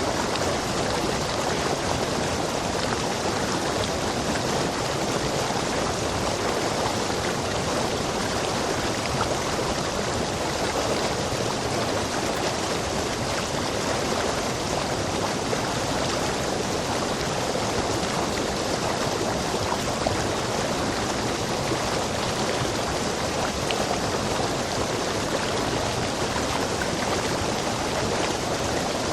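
Stream water rushing over rocks in a rainforest, a steady, unbroken rush.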